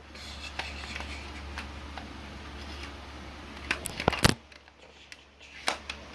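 Handling noise on the recording phone: rustling with scattered light clicks, and a sharp knock about four seconds in.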